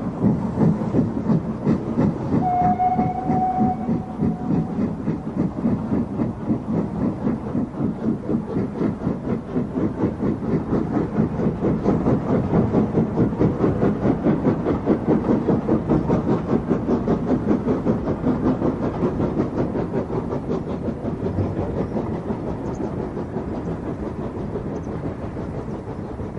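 LMS Fowler 3F 'Jinty' 0-6-0 tank engine working a passenger train, its exhaust beating in a fast, even rhythm, with a short whistle blast about two and a half seconds in. The beats fade as the train draws away near the end.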